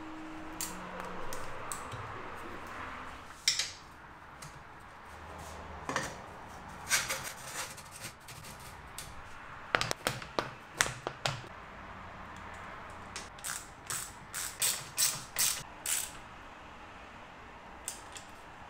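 Small ratchet wrench clicking in short runs as bicycle pedal and saddle clamp bolts are tightened, with knocks from handling the parts. Near the end comes a run of clicks about two a second.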